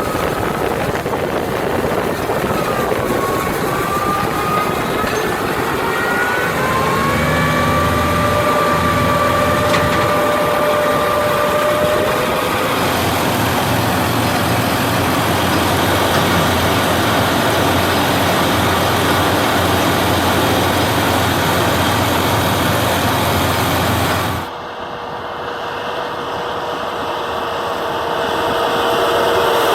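Case IH JX 95 tractor running under load, driving a Kuhn FB 3130 round baler through oat straw, with a machinery whine that rises in pitch over the first several seconds and then holds steady. About 24 seconds in the sound drops suddenly, then builds up again.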